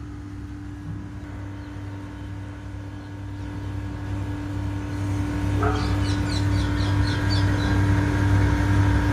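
A steady low mechanical hum with a constant tone, swelling louder over the second half. A few short high chirps come about six seconds in.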